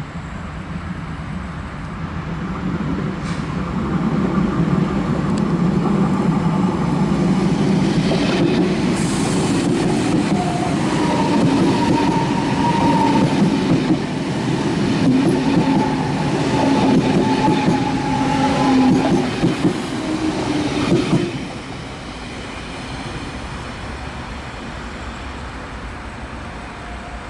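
DB ICE T (class 411) electric multiple unit passing close by: a steady rumble of wheels on rail with a whine, building over the first few seconds. It drops off abruptly about 21 seconds in as the last car goes by, then continues fainter as the train runs away into the station.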